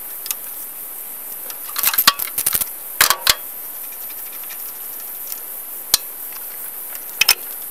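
Socket wrench working the single nut on top of a tractor's centrifugal oil filter cover: scattered metallic clicks and clinks, with a quick run of them about two seconds in and another cluster about three seconds in, then a few single clicks as the nut comes free.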